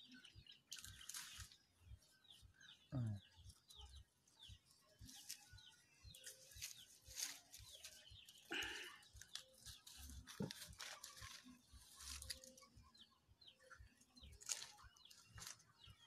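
Faint farm animal calls over near silence: one falling cry about three seconds in and another near the middle, with light rustling and handling knocks throughout.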